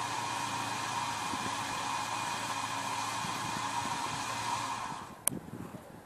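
UAZ Patriot off-roader's engine running steadily under load as the vehicle works its way out of a deep pit: an even whooshing drone with a fixed whine. About five seconds in, the sound dies away and a single sharp click is heard.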